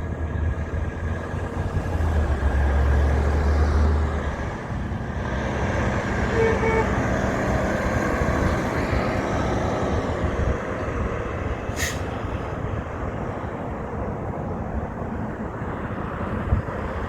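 A heavy truck's engine rumbling past, loudest in the first four seconds, followed by steady road traffic noise. A brief, sharp high hiss comes about twelve seconds in.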